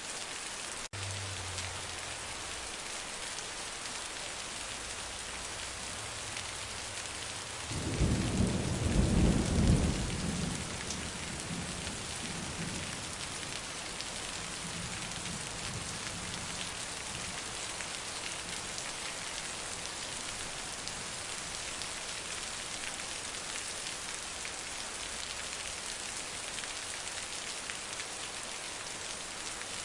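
Heavy rain falling steadily, with a loud roll of thunder about eight seconds in that rumbles for a few seconds and then fades away.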